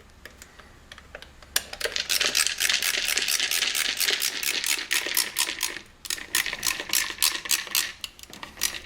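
Rapid metallic clicking and rattling from a screwdriver and metal headlight trim hardware as the headlight's retaining nut and screw are tightened. The clicks start about a second and a half in and pause briefly a little past the middle.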